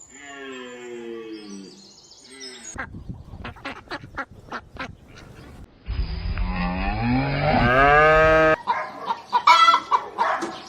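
A string of different animal calls, cut one after another: first a few calls falling in pitch, then a quick run of sharp clicks, then a long call rising in pitch, and more short calls near the end.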